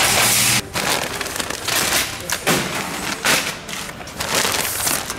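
Plastic bags of zip ties crinkling and thumping as they are handled and dropped into a wire shopping cart, an irregular run of crackles and knocks. It opens with a brief steady rush of noise that stops about half a second in.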